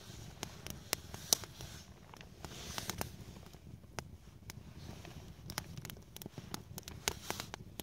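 Small wood-stick campfire crackling, with irregular sharp pops and snaps scattered throughout over a low steady rush.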